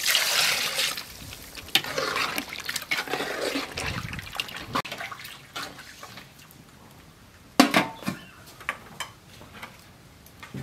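Water poured from above into a steel pot of chicken curry, splashing loudly for about a second and then thinning out over the next few seconds. Later a short metallic clank, as the pot's metal lid goes on.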